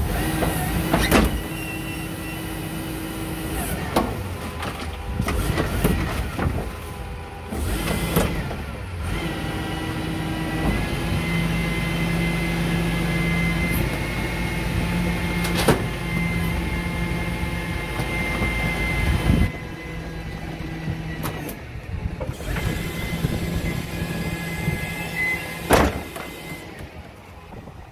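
Rear-loader rubbish truck's engine and hydraulic compactor running with a steady high whine as bulky items are crushed in the hopper. Several sharp cracks and bangs come from the items breaking.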